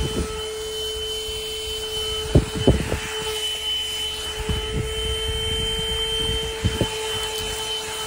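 Corded handheld car vacuum cleaner running steadily with a constant whine at one pitch as it is worked over a fabric car seat. A few short knocks come from handling the vacuum against the seat.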